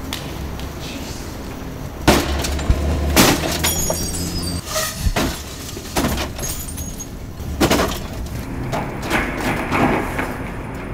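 A small hatchback being smashed by hand and foot: about five heavy blows on its body panels, starting two seconds in, with glass breaking and tinkling. Near the end comes a denser clatter of plastic and metal as the front bumper is wrenched off.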